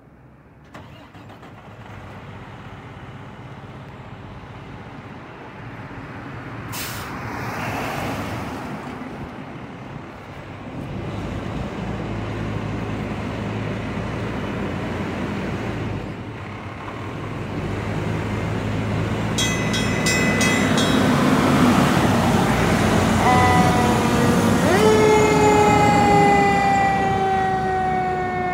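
Pierce tower ladder fire truck's diesel engine running as it pulls out, with a short hiss of the air brakes releasing about seven seconds in. Later its bell rings rapidly, then the mechanical Q siren winds up with a rising wail and slowly falls in pitch, the loudest sound near the end.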